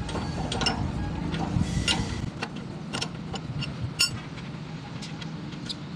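Scattered metallic clinks and ticks of wheel nuts and hand tools being handled at a truck's rear wheel hub, over a low background rumble that stops about two seconds in.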